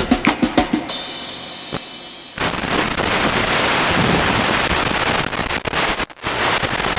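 Drum-heavy music with rapid drum strokes, fading away over the first two seconds. Then a steady loud hiss of analog FPV video-link static takes over as the receiver loses the quadcopter's signal. The hiss cuts out briefly near the end.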